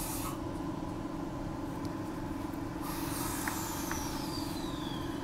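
Steady hum of a Transperth A-series electric multiple unit train standing at a station platform. A short hiss of air dies away just after the start, two light clicks follow in the middle, and a thin high tone slides slowly downward in the second half.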